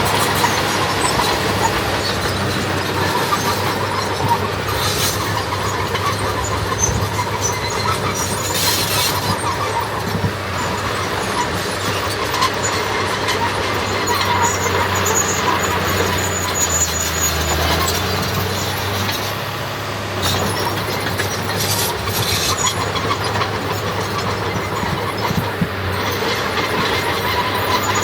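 Diesel earthmoving machinery running steadily, with high squeals coming and going over the engine.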